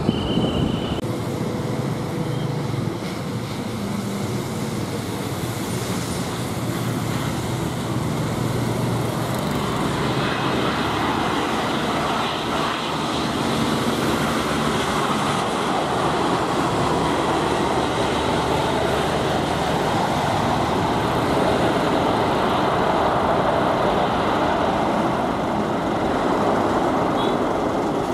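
Boeing 787-9 Dreamliner landing: steady jet engine noise that grows louder about ten seconds in as the airliner flares and touches down, and stays loud through the rollout with its spoilers up.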